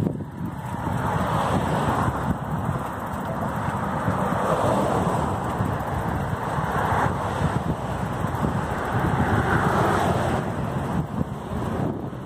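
Wind buffeting the microphone of a camera carried on a moving bicycle, over the tyre noise of cars passing in the adjacent traffic lanes, which swells and fades several times.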